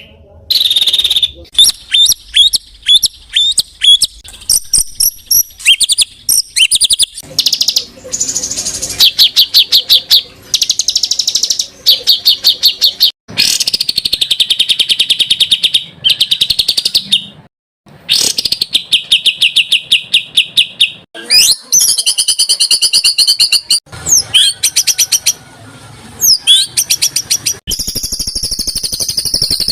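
Spliced recordings of songbirds singing, a training compilation for competition cage birds. Fast, high chirping phrases, rapid trills and rattles follow one another, each clip cut off abruptly into the next. About two seconds before the end, a steady, shrill, continuous trill takes over.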